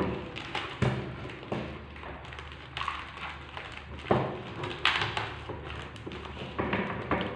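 Hands working with a roll of packing tape and a white foam frame on a table: scattered taps and thumps, with a few brief rasping sounds about three and five seconds in.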